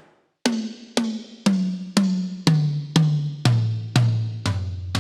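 Drumcraft Series 6 toms with clear Remo Pinstripe heads, tuned high and damped with tape rolls and Remo Crown gels, struck one at a time, twice each, at about two hits a second. The pitch steps down from the smallest tom to the larger ones. Each hit is short and dies away quickly.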